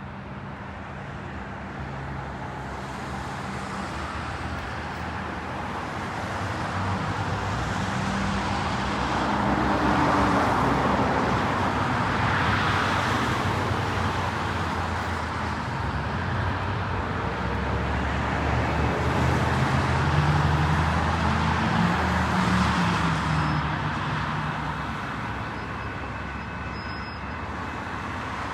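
Motor vehicles passing by with a steady rush and a low engine hum, swelling louder about ten seconds in and again about twenty seconds in.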